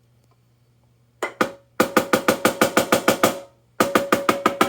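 Dynasty 14x10 marching snare drum struck: two single hits, then a run of even strokes at about six a second, a short pause, and another run near the end. Each stroke rings with a pitched tone from the top head, which is tuned really high.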